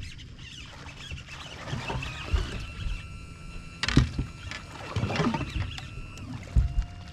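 Knocks and thuds on a bass boat's deck and hull as the anglers move about and handle the landing net while playing a fish, with a thin steady high whine through the middle.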